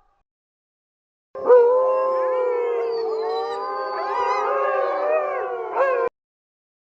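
A pack of wolves howling in chorus, many long overlapping howls rising and falling in pitch. It starts about a second in and cuts off abruptly near the end.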